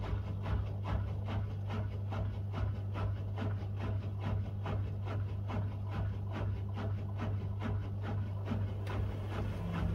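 Miele W1 front-loading washing machine running mid-cycle: a steady low motor hum with a quick, even rhythm of swishing strokes, about four a second.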